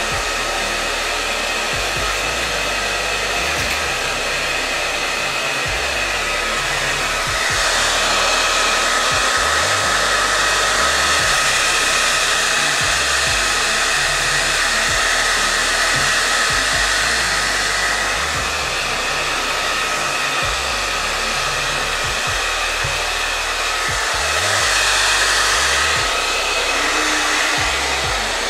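Handheld hair dryer blowing steadily on a wet puppy's coat, a continuous airy rush with a steady whine. It gets louder from about 7 seconds in until about 18 seconds, and again briefly near the end.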